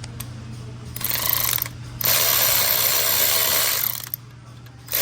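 Cordless electric ratchet running in bursts, tightening the bolts of an engine oil cooler line: a short run about a second in, then a longer run of about two seconds that stops just before the end.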